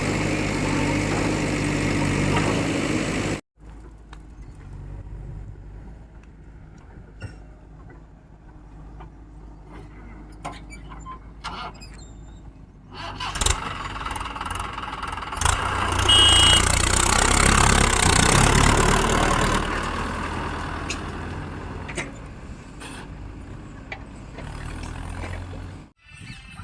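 Diesel engines of a backhoe loader and farm tractors running, in cut-together clips: a steady hum that cuts off suddenly a few seconds in, a quieter stretch with a few clicks, then a loud swell of engine noise in the middle that slowly fades.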